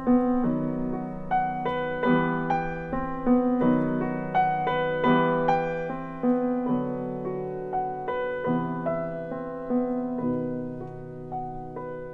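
Background piano music: a melody of single struck notes, each ringing and fading, over lower held notes that change every second or two.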